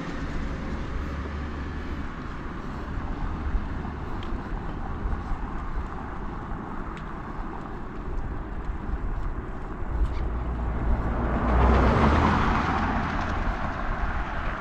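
Road noise while riding a bicycle along a road, with a steady low rumble of wind on the microphone. A louder rush swells and fades near the end, as of a passing vehicle.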